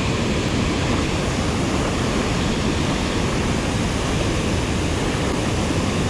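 Steady, loud rush of fast-moving water, an even noise that holds unbroken throughout.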